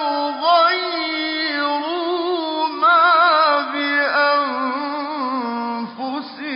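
A man's voice reciting the Quran in Arabic in a slow, melodic chant, drawing out long wavering notes, with short breaks between phrases.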